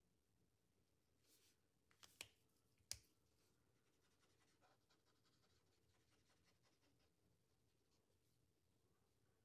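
Near silence: faint strokes of an alcohol marker on paper, with a few small clicks about two to three seconds in, as of a marker cap being pulled off and pushed back on.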